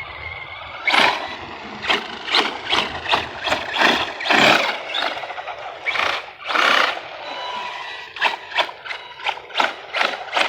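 Arrma Big Rock v3 RC monster truck on 6S power, its electric motor driven in about a dozen short bursts of throttle. Each burst is a quick rise and fall of motor whine with tire noise, and one tire is already blown.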